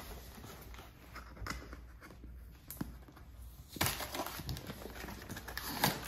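Cardboard battery box being handled and its lid flap pulled open: light knocks at first, then cardboard scraping and rustling from about four seconds in, with a sharper knock near the end.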